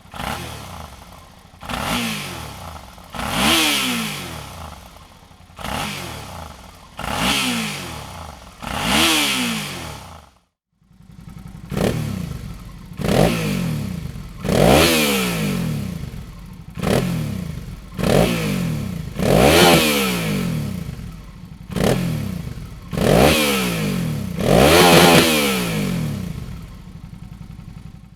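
Suzuki DL650 V-Strom's 645 cc V-twin revved in repeated throttle blips through its exhaust, each rising sharply and falling back toward idle. There is a brief break about ten seconds in, then the blips continue.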